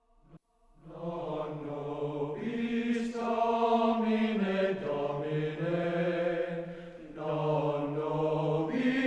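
Low voices chanting slowly in long held notes that step in pitch, starting about a second in, growing fuller about two and a half seconds in and dipping briefly near seven seconds.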